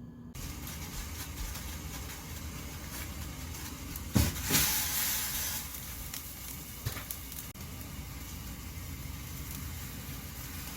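A pot of water boiling on a stove, a steady bubbling hiss. About four seconds in comes a sharp knock, then a brief louder surge of hiss.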